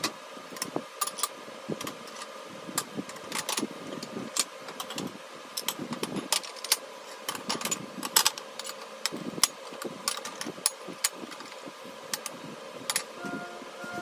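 Noritake Charlotta Gold porcelain plates, cups and saucers clinking as they are set down and shifted against each other, many sharp clinks at irregular intervals, over a steady background hum.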